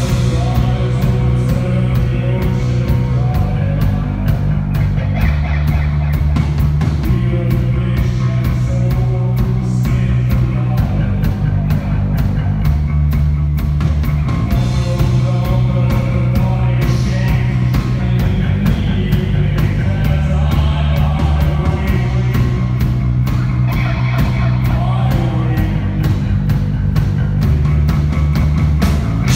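Live rock band playing: electric guitar, bass guitar and drum kit, with singing at the microphone. Heavy bass notes change every couple of seconds under a steady drum beat.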